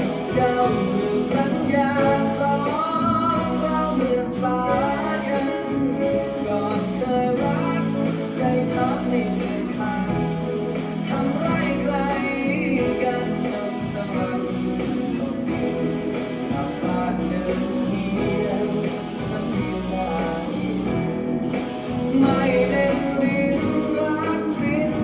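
Music: a song sung with guitar accompaniment, a steady bass line under a gliding vocal melody.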